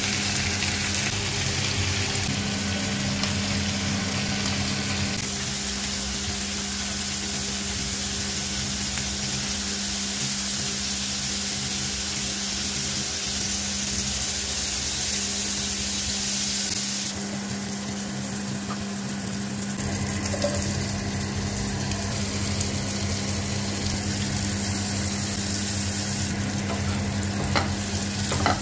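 Head-on prawns sizzling in oil in a frying pan, a steady frying hiss over a low steady hum. Near the end a wooden spatula clicks and scrapes against the pan as chopped red onion is stirred.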